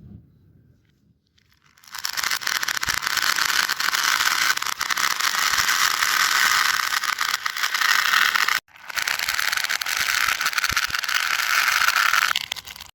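A fidget toy being worked by hand, making a dense, rattling scrape of rapid fine clicks. It starts about two seconds in, breaks off briefly after about six seconds, then runs a few seconds more before stopping.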